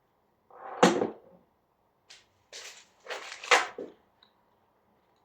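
Handling noises: a heavy thump about a second in, then a short rustle and a couple of knocks near three and a half seconds, as a door closer and its packaging are moved about.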